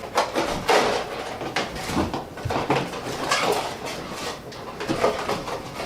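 Small hard plastic toy pieces clicking, clattering and rustling as they are handled and fitted back into their packaging, in irregular short knocks.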